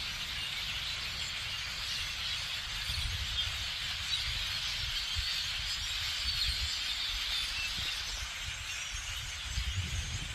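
A large flock of blackbirds calling all at once: a dense, steady chatter of many overlapping chirps and squeaks, with a low rumble underneath.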